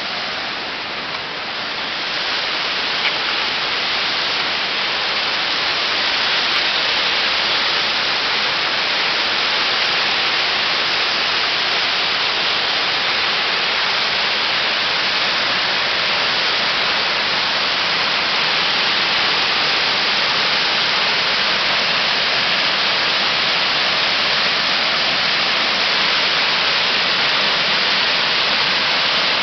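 Stream water rushing over a small concrete weir, a steady hiss of falling water that grows louder a couple of seconds in and then holds.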